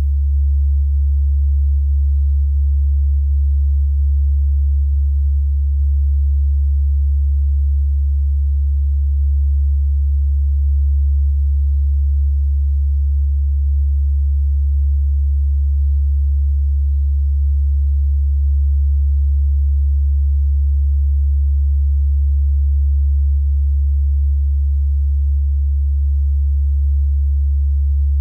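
Steady, loud, low electrical hum: a single deep tone that holds unchanged throughout.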